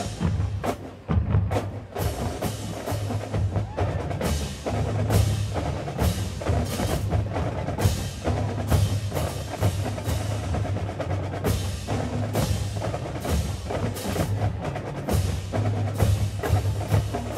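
Marching band percussion playing a rhythmic passage: a steady run of sharp drum and rim hits over a sustained low bass line.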